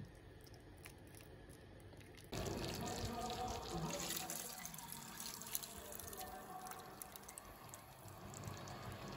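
Stock being poured from a bowl into a pot of braised oxtail: a steady wet pouring and splashing that starts suddenly about two seconds in. Before it there is only a faint trickle of hot water poured from a kettle into a bowl.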